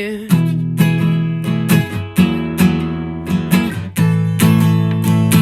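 Acoustic guitar strumming chords in a steady rhythm, about two strums a second.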